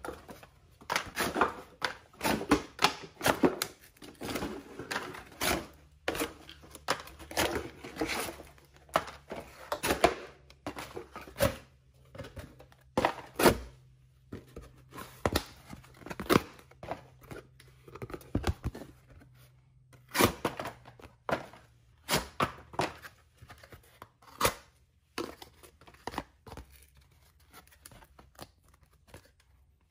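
Workpro utility knife blade slicing through material in quick, repeated strokes, with a scraping, tearing sound to each cut. The strokes come thick and fast for the first dozen seconds, then thin out into scattered sharp clicks and cuts.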